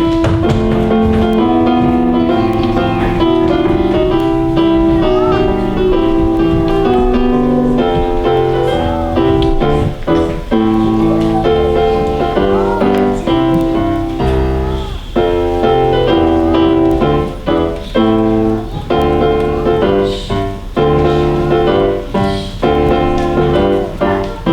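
Instrumental music led by a keyboard, with held chords and a steady beat.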